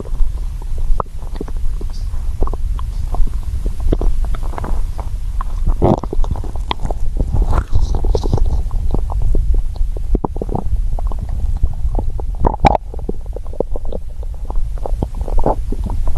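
Human stomach growling and gurgling: a steady low rumble with many short pops and gurgles over it, the growls of an empty, hungry stomach.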